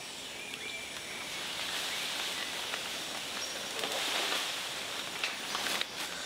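Tropical rainforest ambience: a steady high hiss with a few faint chirping calls, and a few short rustles or snaps near the end.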